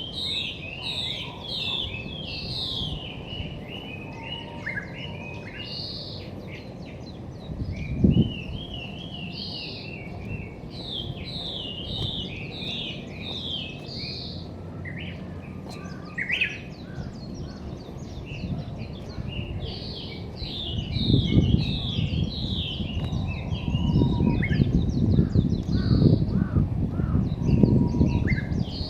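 A songbird sings in repeated bouts of quick, bright chirping notes, with short pauses between phrases. There is a single thump about eight seconds in, and a low rumble on the microphone for the last third.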